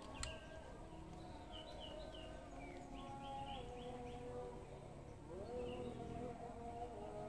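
Faint outdoor ambience: birds chirping in short runs, over a low steady hum that rises in pitch about five seconds in. A single light click comes right at the start.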